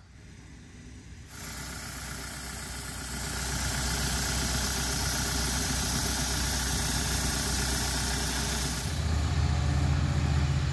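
Engine-driven flood pump on a trailer running steadily: an even hiss over a low engine hum. About nine seconds in it gives way to a deeper, louder engine hum from vehicles idling on a street.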